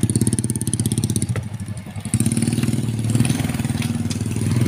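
Small motorcycle engine running as the bike moves off. Its pulsing note grows louder and steadier about two seconds in as it picks up speed.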